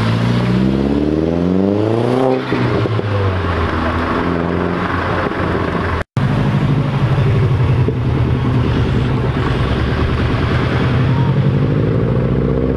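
A SEAT León's engine revving up as the car accelerates away, its pitch climbing for about two seconds and then levelling off. After an abrupt cut, a Subaru Impreza's flat-four engine runs at a steady low note, then begins to rise as it pulls away near the end.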